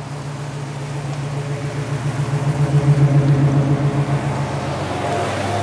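Car engines idling steadily with a low, even hum, growing somewhat louder around the middle.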